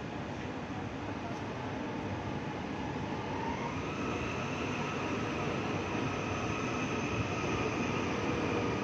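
KRL electric commuter train running with a dense rumble that slowly grows louder. A steady electric motor whine joins it about three and a half seconds in.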